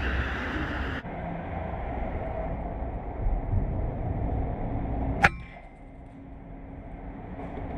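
A single shot from a .22 Kalibrgun Cricket II PCP air rifle set to low power, about five seconds in: one short, sharp crack with a brief ring. Under it is a steady low rumble.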